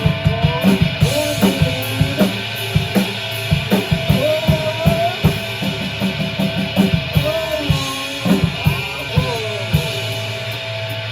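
A rock band playing live: drum kit and guitar, with a dense run of drum hits that thins out near the end.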